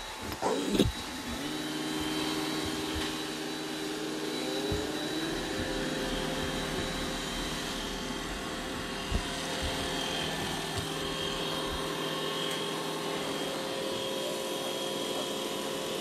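Roomba robot vacuum running: after a few knocks in the first second, a steady motor hum starts about a second and a half in, one tone in it rises a few seconds later, and it then runs evenly with an occasional knock.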